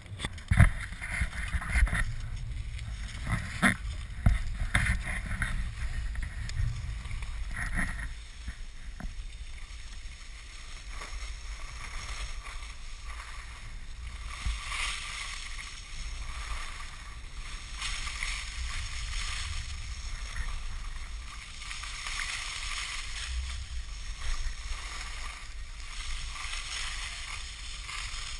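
Skis scraping and hissing over packed snow, with wind rumbling on a ski-pole-mounted GoPro's microphone. A few sharp knocks come in the first few seconds, and the scraping grows louder and swells in and out in the second half.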